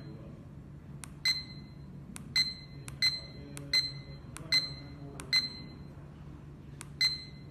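The key beeper of a handheld S4 GPS land measuring instrument sounds seven short, high beeps, each just after the click of a pressed key. Each beep confirms a press of the up/down key as the meter steps through its measuring modes to fixed width mode. A faint steady hum lies underneath.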